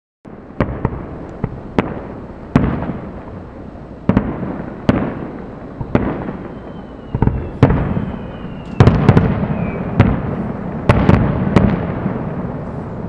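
Fireworks display: a string of sharp bangs from shells bursting at uneven intervals, each followed by a long rolling echo. The bursts come thickest and loudest about two-thirds of the way through.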